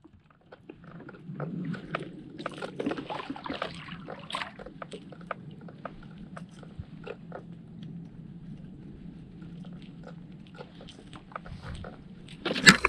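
Baitcasting reel cranked steadily to retrieve a crankbait: a low steady whirr with many small clicks. Near the end comes a louder burst of sharp clicks.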